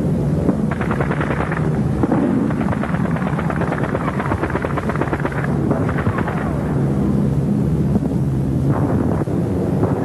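Air raid battle sound effects: a steady drone of aircraft engines overhead, broken by repeated rattling bursts of gunfire and explosions.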